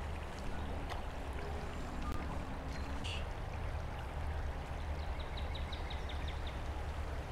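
Shallow river water running steadily over a rocky bed. A short run of faint high ticks comes about five seconds in.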